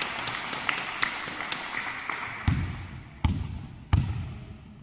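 Volleyball bounced three times on the hall's wooden floor before a serve, each bounce a sharp thud with a brief ring in the hall, the three coming a little under a second apart.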